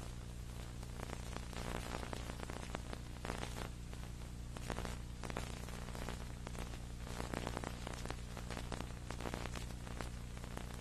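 Steady electrical hum under crackling static and hiss, with no crowd or commentary: the soundtrack has dropped out.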